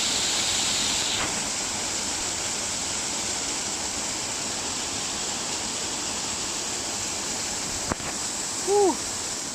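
Steady rush of water from a waterfall and stream. Near the end there is a single click, followed by a brief, louder voice-like sound that rises and falls in pitch.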